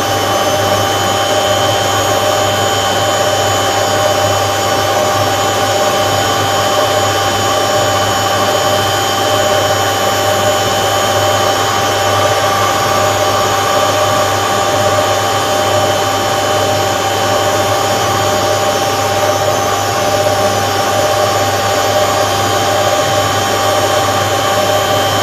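Hotpoint First Edition WMA 9 washing machine running on its replacement motor: a steady motor whine and hum that does not pause or change.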